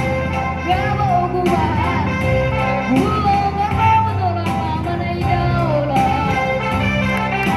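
A song: a singing voice carrying a melody over instrumental accompaniment with a steady low beat.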